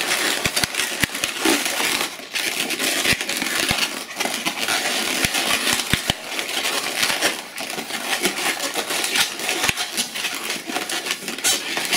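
Inflated latex modelling balloons squeaking and rubbing against each other as a long balloon is twisted and wrapped around the balloon bubbles, a steady rubbery rustle full of sharp little squeaks and clicks.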